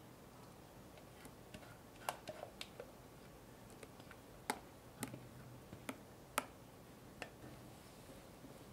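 Faint, scattered wet clicks and ticks, about ten of them, from thick whipped cream being poured onto a strawberry cream-cheese mixture in a glass bowl, over quiet room tone.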